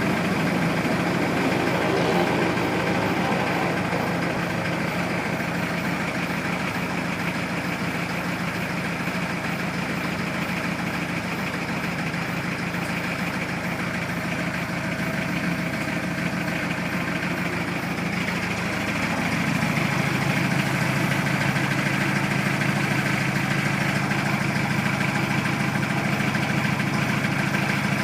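A vehicle engine idling steadily. About two-thirds of the way through it takes on a deeper, slightly louder tone.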